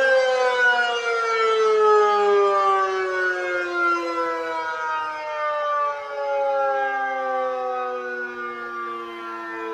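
A motor-siren wail of the kind used by Japanese disaster-warning radio and fire stations, recreated electronically and played through a public-address system. The siren winds down, its pitch falling slowly, with more than one tone overlapping.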